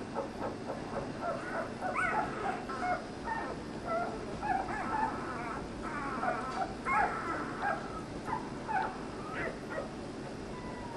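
Border Collie puppies about a week and a half old squeaking and whimpering: many short high calls in quick succession, busiest through the middle and thinning out near the end.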